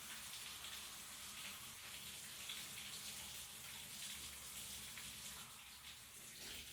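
Shower running: a steady spray of water hissing and splashing, with a few small splashes standing out.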